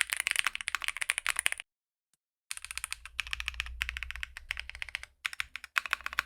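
Mechanical keyboard being typed on quickly, a dense run of sharp key clacks. The typing stops for about a second near the middle, then picks up again.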